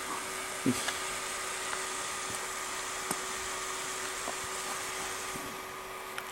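Laptop cooling fan running with a steady hum and hiss, and a few clicks, the loudest a soft thump near the start and a sharp click about three seconds in.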